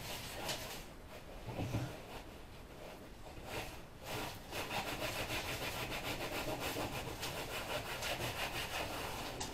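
Cloth rag rubbing back and forth over a hard work-table top, scrubbing off resin spills. The strokes are irregular at first, then from about four and a half seconds in they become fast, even and rhythmic.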